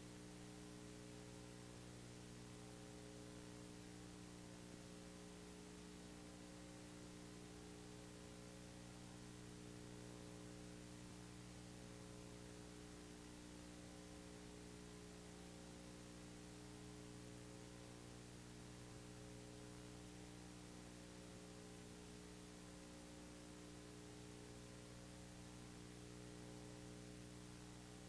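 Near silence: a steady low electrical hum with faint hiss from a tape transfer that has no soundtrack.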